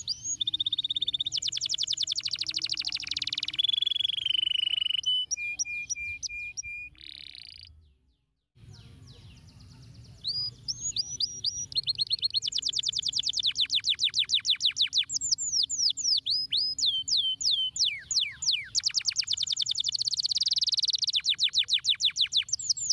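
Domestic canary singing: long, fast trills of rapidly repeated notes alternating with sliding whistled notes, breaking off for about half a second about a third of the way in before starting again.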